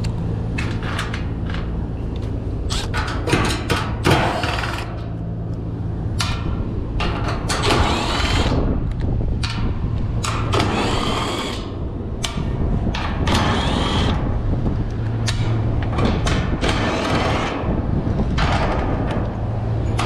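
Cordless drill/driver running in a series of short bursts, each spinning up and down with a whine, as it backs screws out of a condenser fan guard. A steady low hum runs underneath.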